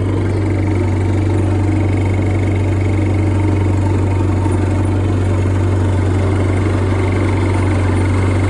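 IH Cub Lo Boy 154 tractor's small four-cylinder gasoline engine running steadily, with a constant low hum.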